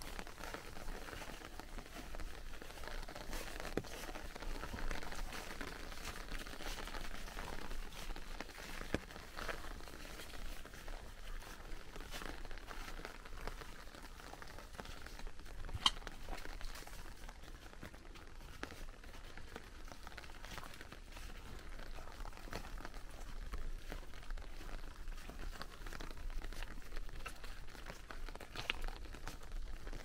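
Footsteps of a walker and a husky rustling and crackling through a thick layer of fallen autumn leaves, in a steady fine crinkle with scattered small clicks. One sharper click stands out about halfway through.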